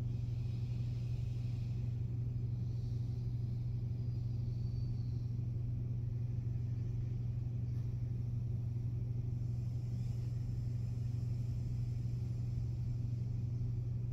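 A steady low hum, unchanging in pitch and level.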